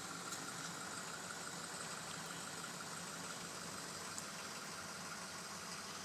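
Steady mechanical hum under a hiss, with a faint high whine held throughout.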